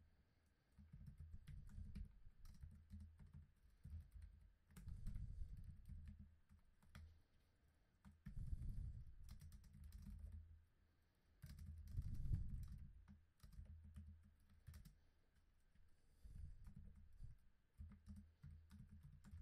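Faint typing on a computer keyboard: bursts of keystrokes with short pauses between them.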